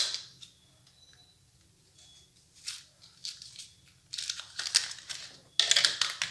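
Packaging of an M.2 SSD being unwrapped by hand: crinkling and tearing in irregular rustles, busier in the second half, after a sharp click at the very start.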